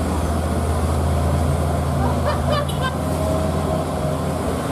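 Mercedes-Benz Axor dump truck's diesel engine running steadily in a low drone as it pulls away up the slope, with other road traffic around it.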